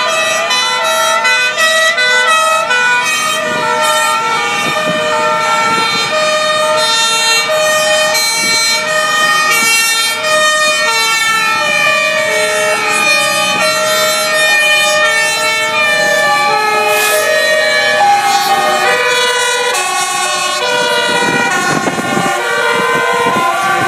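Many emergency-vehicle sirens sounding at once as a convoy of fire engines, police cars and vans drives past. They are two-tone hi-lo sirens, each stepping between two pitches and all out of step with each other, over passing traffic noise. A low rumble comes in near the end.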